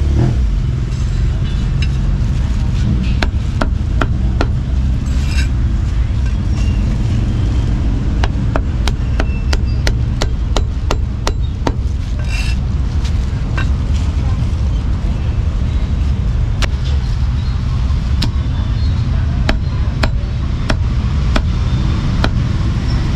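Heavy meat cleaver chopping roast meat on a thick round wooden chopping block: sharp knocks at an irregular pace, sometimes in quick runs. Underneath runs the steady low rumble of motorbike and car traffic.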